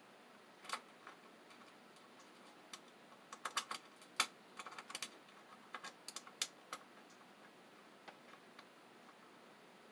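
Faint, irregular small clicks and taps of a screw and wire terminal being handled and fitted into a cassette deck's sheet-metal chassis, most of them bunched together in the middle.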